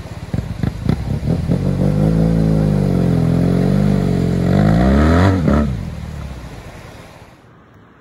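A BMW GS adventure motorcycle's boxer-twin engine chugs unevenly at low revs through the shallow river crossing, then pulls harder with its pitch climbing as the bike rides out onto the gravel road. About five and a half seconds in the revs drop and the engine fades into the distance.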